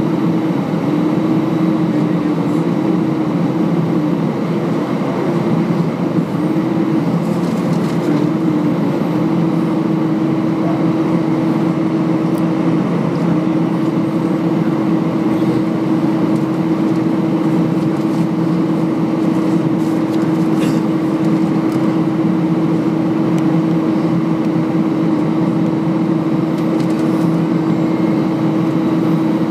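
Cabin noise inside an Airbus A319 taxiing on idle engine thrust: a steady rumble with an even, unchanging hum.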